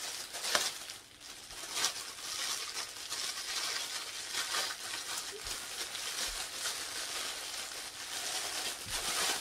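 Plastic packaging crinkling and rustling as it is handled and opened, with sharper crackles about half a second and two seconds in.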